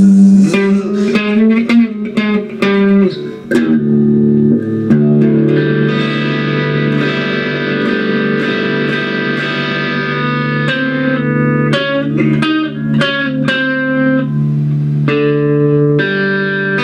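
Electric guitar solo on an Ibanez: quick picked single notes with some string bends, then a long held note for several seconds, then more picked notes.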